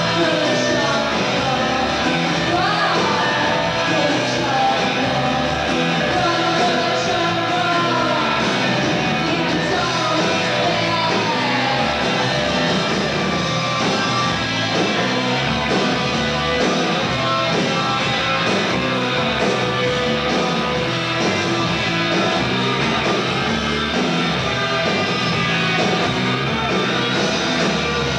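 Live rock band playing, with electric guitars and drums, and a woman's voice singing and shouting over it.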